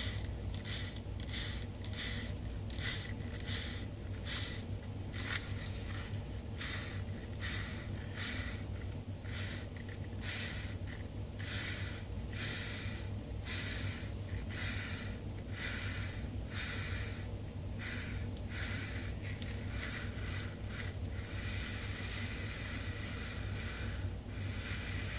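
Hand sanding with 400-grit sandpaper on a Delco 27SI alternator bushing: rhythmic back-and-forth rasping strokes, about two a second, running into a steadier hiss near the end, with a steady low hum underneath.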